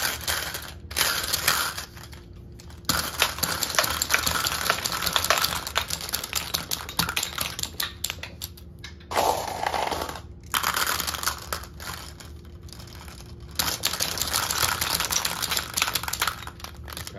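B-Daman Gatling Tank Shell toy marble shooter firing glass marbles in rapid-fire runs: a fast clatter of clicks as marbles shoot out, strike plastic targets and scatter, in several bursts separated by short pauses.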